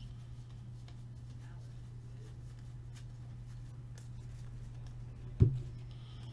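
2015-16 Upper Deck Champs hockey cards flipped through by hand, faint clicks of card against card over a steady low hum. A single loud thump about five seconds in.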